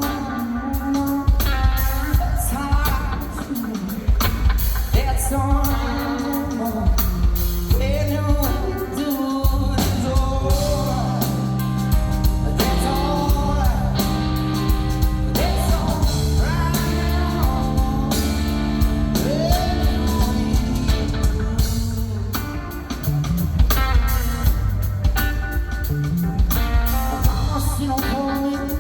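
Live blues-rock band playing loud and dense, with electric guitar, a drum kit and a singing voice.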